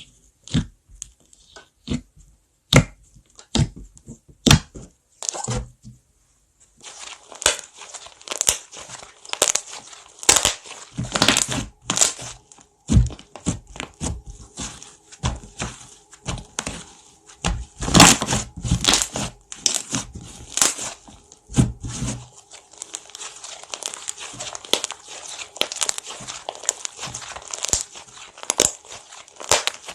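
Slime being pressed and played with close to the microphone: separate sharp pops for the first six seconds or so, then a dense run of crackling clicks.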